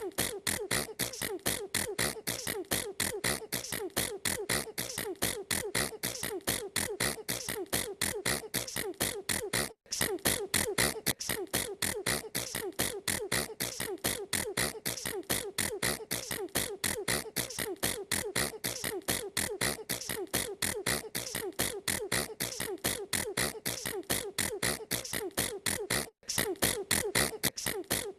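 A girl's sneezes repeated in a fast, even train of several a second, broken by two brief gaps, about ten seconds in and near the end.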